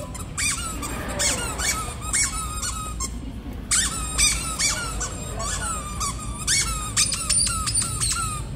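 A dog biting down on the squeaker of a large Lamb Chop plush toy, giving many quick squeaks in a row. Each squeak drops in pitch before it ends, and they come in two runs with a short break about three seconds in.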